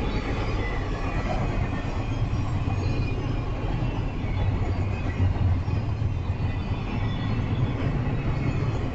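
Double-stack intermodal freight train rolling past: the steady rumble of its well cars' wheels on the rails.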